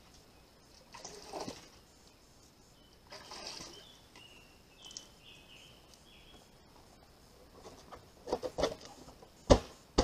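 Two brief rustles and a few faint bird chirps, then a cluster of sharp knocks near the end as a black barrel lid is set onto the rim of a plastic rain-collection barrel.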